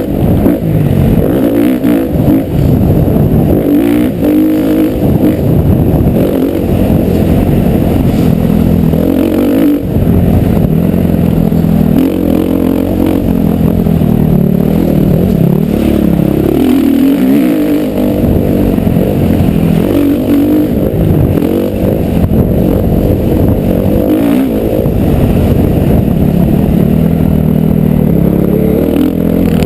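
Motocross bike engine being ridden hard, loud throughout, its revs rising and falling again and again as the rider accelerates and backs off around the track.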